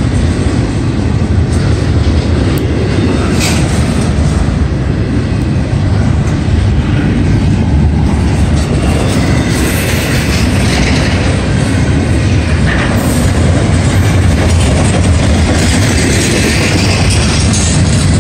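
Double-stack intermodal freight cars rolling past close by: a steady, loud rumble of steel wheels on the rails, with some clickety-clack.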